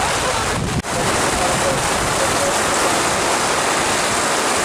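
Heavy downpour: a steady hiss of rain pouring onto paved streets, dropping out for an instant about a second in.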